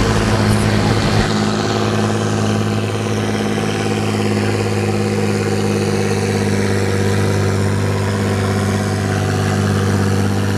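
Massey Ferguson farm tractor's diesel engine running steadily under heavy load as it pulls a weight-transfer sled down the pulling track.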